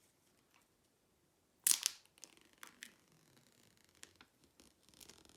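Paper pull-tab strip being ripped off the iPhone 12 Pro box's seal: one short, sharp tear about two seconds in, followed by faint rustling and light clicks of paper and cardboard being handled.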